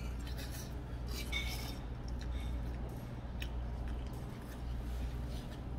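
Metal chopsticks and a spoon clinking against a metal bowl of jajangmyeon as the noodles are stirred and lifted. The clinks are scattered and light, bunched in the first second and a half, over a steady low hum.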